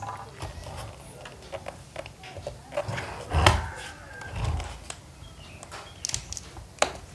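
Small screwdriver undoing the screws in the back of a Harman Kardon Onyx 3 speaker's housing, with scattered light clicks and scrapes and a few soft thumps as the speaker is turned and handled.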